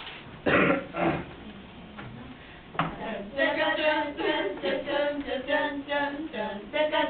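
A group of schoolgirls singing a song together in unison, beginning about three seconds in, after two short loud vocal bursts near the start.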